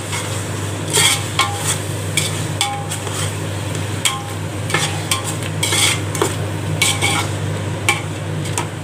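A metal spatula scraping and clinking against a large metal pot as chopped tomatoes are stirred and sautéed in hot oil, with steady sizzling underneath. The scrapes come irregularly, about one or two a second, over a steady low hum.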